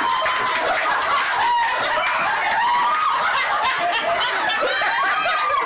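Several people laughing and shrieking at once, their voices overlapping throughout.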